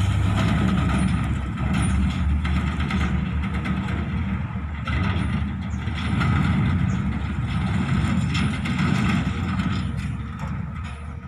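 Diesel engine of a coal dump truck running under power as the truck drives away over a rough dirt haul road, fading near the end.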